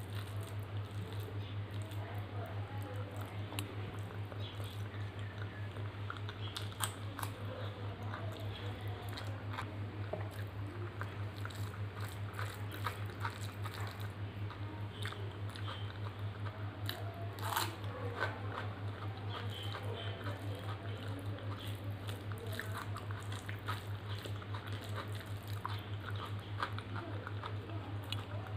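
Close-up eating sounds: a hand mixing and squishing rice and dal on a steel plate, and chewing with many small wet mouth clicks, a couple of them louder. A steady low hum runs underneath.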